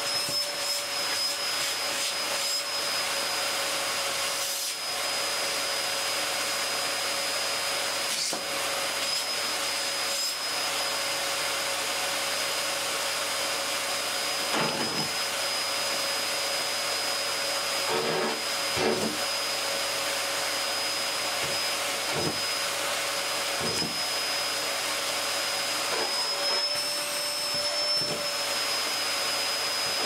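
Hoover bagless cyclonic vacuum cleaner running steadily with its air intake being clogged and partly freed, so its suction swings between high and lower. Its motor whine rises slightly in pitch a few seconds before the end, and a few short soft knocks come in the second half.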